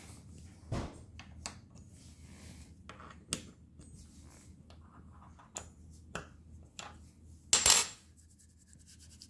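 A metal hex bolt clicking and clinking against the metal pocket inserts of a magnetic 3D-printer bed plate as it is test-fitted into the pockets: scattered light taps, the loudest a short metallic clatter about seven and a half seconds in. The pockets have 0.05 mm clearance, a fit the uploader calls a little bit loose.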